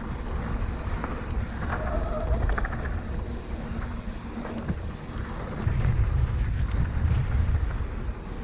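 Wind buffeting the microphone of a moving mountain bike, over a steady rumble of tyres on a dirt trail. There is a brief pitched squeal about two seconds in, and the wind surges loudest a little past the middle.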